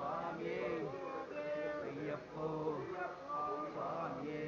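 Group of male Ayyappa pilgrims chanting together: a sung devotional call with rising and falling pitch, several voices overlapping.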